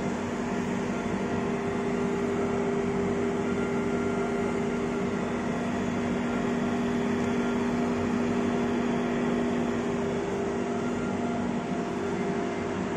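Steady hum and fan whir of a powered-on CNC plasma cutting machine and its Huayuan LGK 200A air plasma power source, standing by without cutting; several fixed tones sit over an even rushing noise.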